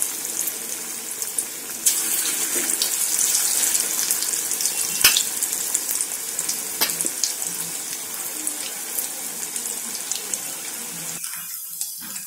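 Masala-coated chicken pieces deep-frying in hot oil in a kadai: a steady sizzle broken by scattered sharp pops and crackles.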